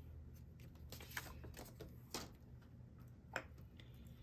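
A few faint taps of a stamp being inked on an ink pad and pressed onto an envelope, over a low steady hum.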